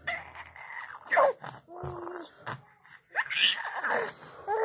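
A baby's breathy vocal sounds while sucking on its fists: a run of short gasps and grunts, a brief coo about two seconds in, and a louder strained sound about three seconds in.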